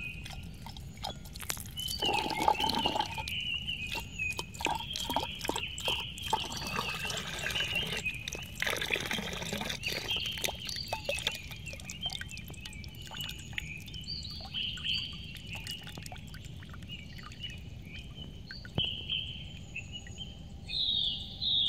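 Coconut water poured from a husked young coconut into a glass tumbler, splashing and trickling as the glass fills, heaviest in the first half, then thinning to drips into the full glass. Birds chirp throughout, loudest near the end.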